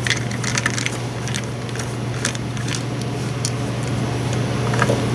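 Hand screwdriver backing screws out of a battery chainsaw's plastic housing: scattered small clicks and scrapes over a steady low hum.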